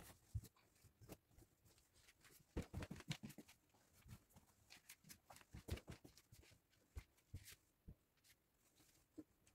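Faint scattered rustles and soft thumps of bed sheets and pillows being handled while a bed is made, busiest about three seconds in and again near six seconds.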